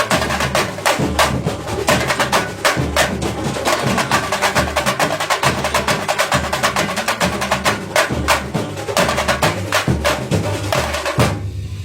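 Band rehearsal music, instrumental with no singing: a dense, driving percussion groove of drums and wood-block-like strikes over a steady bass pulse. It stops abruptly about eleven seconds in.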